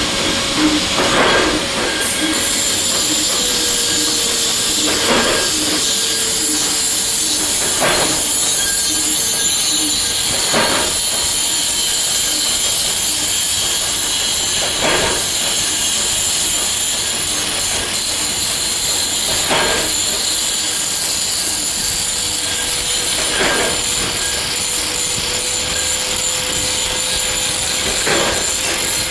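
Factory machinery running with a steady hiss and a high whine, with a knock every three to five seconds.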